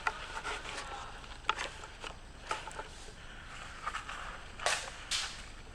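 Rustling and light clicks of an airsoft player moving with his gear through brush, with two louder brushing sounds near the end.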